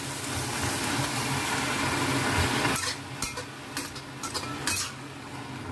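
Metal spatula stirring and tossing wilting yau mak choy lettuce in a hot wok. A steady sizzle runs for about the first three seconds, then drops away, leaving several sharp scrapes and knocks of the spatula against the wok.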